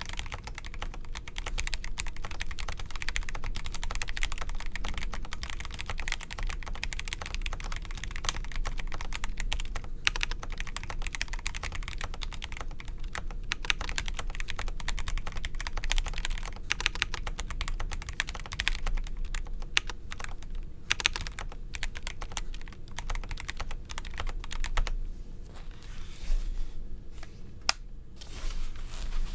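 Fast typing on a Feker Alice 80 mechanical keyboard with stock Gateron Pro Yellow linear switches, a split polycarbonate plate and a silicone-dampened case. The key clicks are dense and continuous, thinning out near the end.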